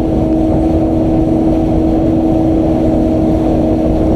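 Motorboat engine running steadily under way, a constant drone with a rumble beneath it.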